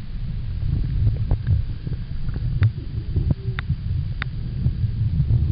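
Underwater audio from a diving camera: an irregular low rumble of water moving around the housing, with scattered sharp clicks and ticks.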